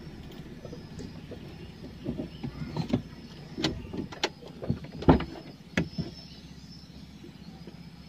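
Irregular clicks and knocks inside a stopped car, about a dozen over a few seconds with the sharpest a little past the middle, over a low steady hum.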